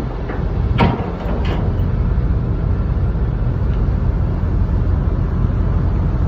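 Steady low engine rumble aboard a car ferry barge under way, with two brief knocks about a second in.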